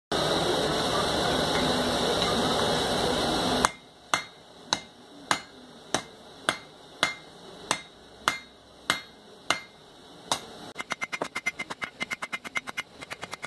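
A steady noise cuts off suddenly about 4 seconds in. A hand hammer then strikes a red-hot iron bar on an anvil in single hard blows about every half second, and near the end switches to quicker, lighter blows at about four a second.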